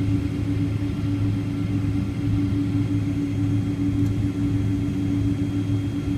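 Boeing 777-200 airliner giving off a steady low drone with a constant hum, holding level without rising.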